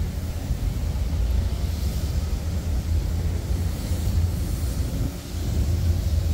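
City street ambience: a steady low rumble with no distinct events, easing briefly about five seconds in.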